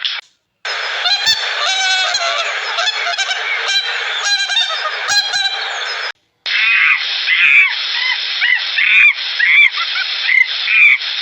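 A flock of birds calling together, with many overlapping honking calls. There is a brief break about six seconds in, after which the calls come as a run of repeated, arched honks.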